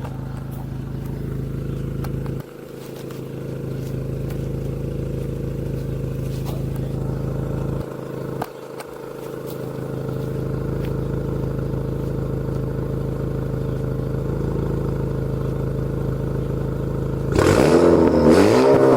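Turbocharged 2.0-litre four-cylinder engine of a 2018 Honda Accord, running through a catless downpipe, idling steadily; about 17 seconds in it is revved, louder, the pitch sweeping up and down. The exhaust has a small leak at the joint between the downpipe and the rest of the exhaust.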